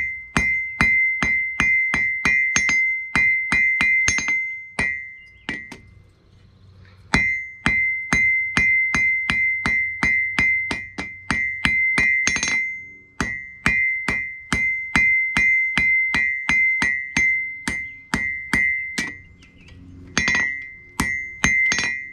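Hand hammer striking a red-hot steel tong half on an anvil, about three blows a second, each blow leaving the anvil ringing at one steady pitch. The hammering breaks off a little after a fifth of the way in and again near the end before picking up again.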